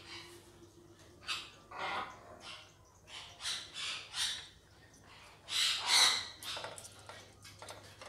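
Parrots squawking: a series of short calls, several in quick succession, the loudest a little after halfway through.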